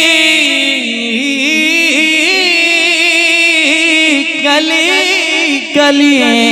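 A man singing a naat, a devotional Urdu poem, into a stage microphone: one long, ornamented sung line whose pitch wavers and bends, with a brief break for breath near the end.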